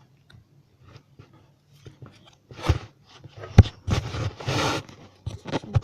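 Hockey trading cards being handled and flipped through, with irregular rustling and scraping and one sharp knock about three and a half seconds in.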